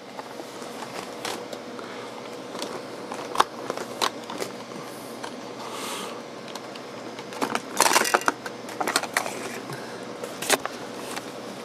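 Plastic battery-compartment cover of a Tandberg TP-41 transistor radio being handled and slid open, with scattered sharp clicks and a busier run of clicks and scraping about eight seconds in, over a low steady hiss.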